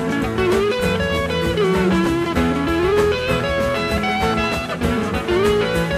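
Background music: a guitar-led instrumental passage with a melody that slides between notes over a steady drum beat.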